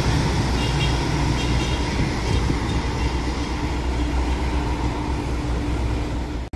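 Marcopolo G7 intercity coach's diesel engine pulling away: a deep, steady rumble.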